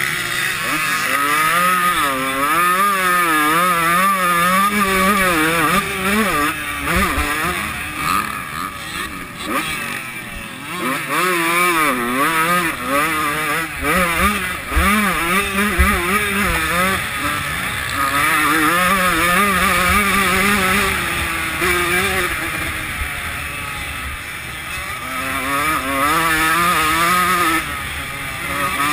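125 cc two-stroke motocross bike engine at full race effort, its pitch rising and falling over and over as the throttle is opened and closed through the gears. Heard close up from a helmet-mounted camera.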